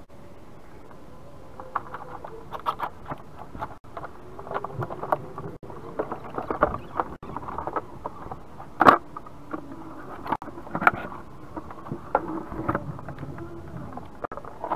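Knocks, creaks and scrapes of old wooden fence panels being handled and moved. The knocks come in an irregular run, with the sharpest near nine seconds in and another about two seconds later.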